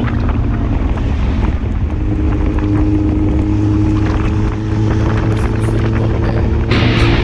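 Four-cylinder motorcycle engine running steadily, with wind rushing over the microphone.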